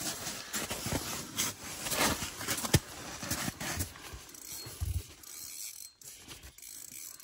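Irregular light clicks and scrapes of fishing gear being handled, busier in the first half and thinning out after about five seconds.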